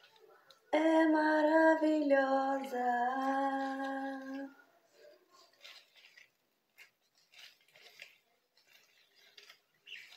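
A woman singing a held melodic phrase for about four seconds, starting about a second in. She then falls silent, leaving only faint scattered rustles and clicks of her gloved hands working product through her hair.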